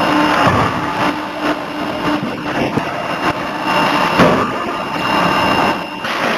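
50 kJ forging hammer and its machinery running loudly with a steady mechanical noise. A hum in it stops about three seconds in, and several knocks come at irregular intervals.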